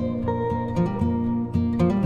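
Background music: an acoustic guitar picking and strumming a steady run of notes.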